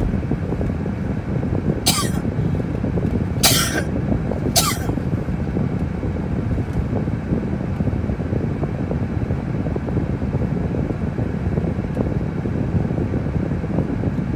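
Steady low rumble of road and engine noise inside a moving car. Three short, sharp bursts cut through it about two, three and a half and four and a half seconds in.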